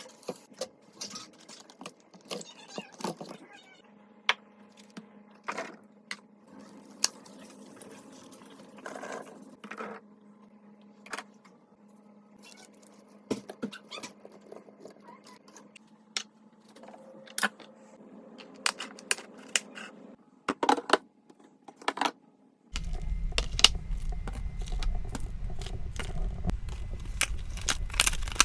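Food containers, lids and packaging being handled and set down: a string of sharp clicks, taps and light rustles, with a faint steady hum under much of it. A few seconds before the end a low rumble starts beneath the clatter.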